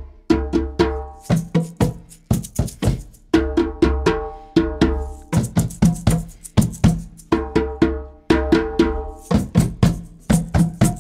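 Hand drums (djembes and a cajon) struck in short rhythm phrases, each phrase answered by the group playing it back, with an egg shaker rattling along at times.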